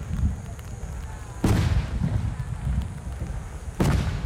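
Aerial firework shells bursting: two loud booms about two seconds apart, each followed by a long low rumble.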